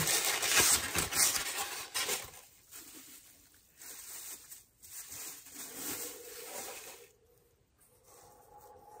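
Plastic wrapping rustling and crinkling as an object is unwrapped by hand. The rustle is loudest in the first two seconds, then comes in softer, broken patches and dies away about seven seconds in.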